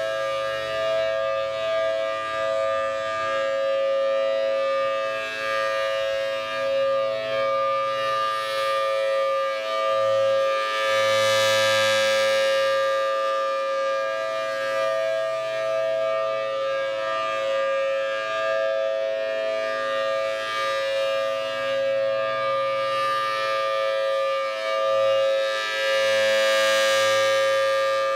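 Federal Signal Thunderbolt 1000T civil defense siren sounding a steady alert tone during a test. The tone swells louder twice, about a dozen seconds in and again near the end, as the rotating siren head sweeps toward the listener.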